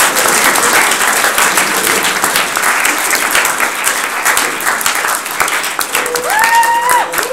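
Audience applauding and cheering, with one long held call from a voice near the end.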